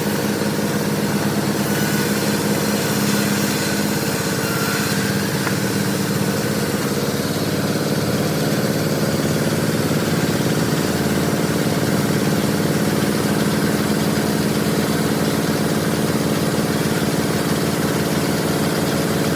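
Sawmill machinery running steadily: an even, loud drone with a fast pulsing beat.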